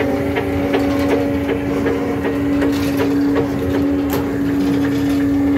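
Steady hum of a tuna purse seiner's deck machinery, with irregular knocks and clatter over it.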